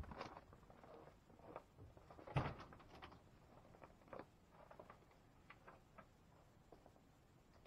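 Footsteps in snow, then the Dodge Raider's driver door opening with a sharp clack about two and a half seconds in, followed by a few faint knocks and rustles.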